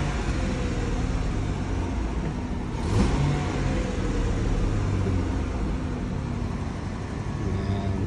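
Ford F-150's 4.2-litre V6 running at idle just after it finally started, its no-spark fault cured once a coil capacitor pigtail shorting against the EGR pipe was moved clear and the fuse replaced. Briefly louder about three seconds in.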